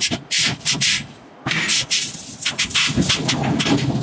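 Irregular short bursts of hissing, scraping noise at a white-hot iron forging during hot forging, with a low rumble of shop machinery underneath; there is a brief lull about a second in.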